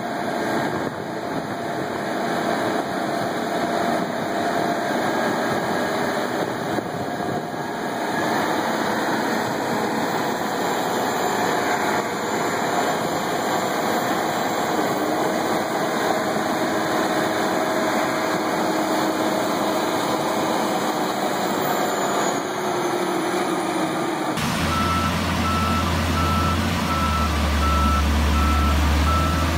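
Case IH Steiger Quadtrac 620's 12.9-litre twin-turbo diesel running steadily while the tractor sits deep in mud. About 24 seconds in, the sound cuts to a Case IH Steiger Quadtrac 600 diesel pulling a seed drill: a deep engine drone with a fast, even beeping over it, about three beeps a second.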